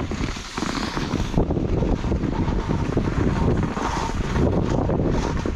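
Skis sliding and scraping down through heavy wet snow, with wind buffeting the microphone, in a continuous rough rushing noise.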